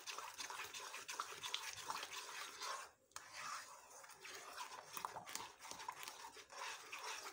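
A spoon stirring and scraping a milk and cornflour mixture around a nonstick pan: faint, continuous rubbing with scattered light clicks, pausing briefly about three seconds in.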